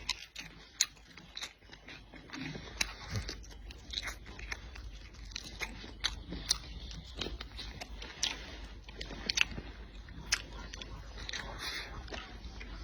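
A person biting and chewing food close to the microphone. The eating gives many irregular, sharp mouth clicks and smacks.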